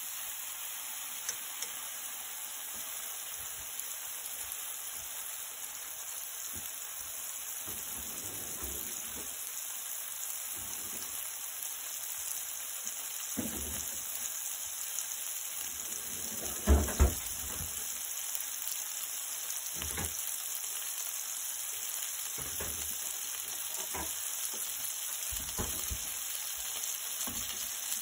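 Shredded cheese sizzling steadily in oil in a nonstick frying pan as it browns, with a few knocks, two loud ones close together about halfway through.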